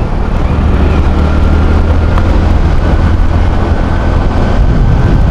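Motorcycle riding along, heard from the rider's own microphone: a steady, loud low rumble of engine, road and wind noise.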